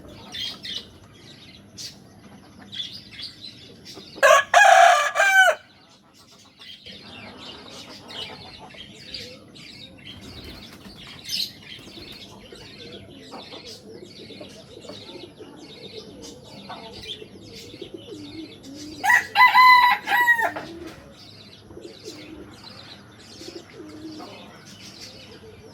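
Rooster crowing twice, two loud drawn-out cock-a-doodle-doo calls about fifteen seconds apart. Between them there are soft clucks and chirps from other chickens.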